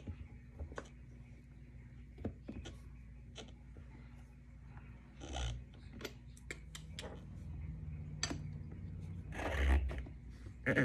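Scattered small clicks and knocks of a metal skate tool working a roller skate wheel's axle nut, and the wheel being handled, with two louder handling noises about five and nine and a half seconds in.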